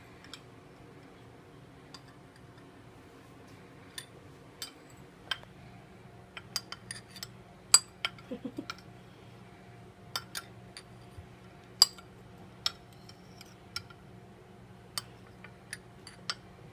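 Metal spoon clinking and scraping against a glass bowl and a small glass jar while thick melted crayon mixture is spooned from one to the other: irregular sharp clinks, the loudest about 8 and 12 seconds in, over a faint steady hum.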